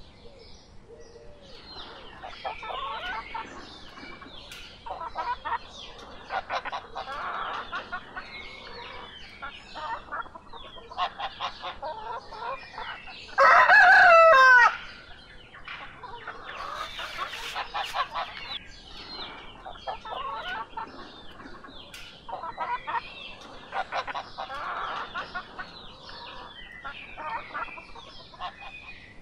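Chickens clucking in short, repeated calls, with a rooster giving one loud crow, about a second and a half long, about halfway through.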